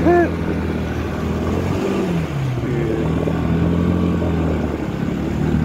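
Motorcycle engine running under way, its pitch dropping about two seconds in and rising again a second later as the revs come down and pick back up. A brief voice sound right at the start.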